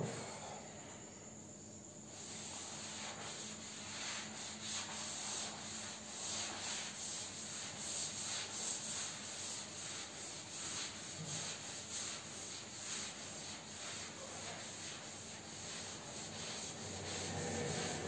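Cloth wiping chalk off a blackboard: repeated rubbing strokes across the board, starting about two seconds in.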